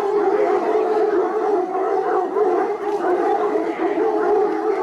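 A pack of French hunting hounds baying and howling together in a continuous, many-voiced chorus. It is the clamour of the pack at feeding time.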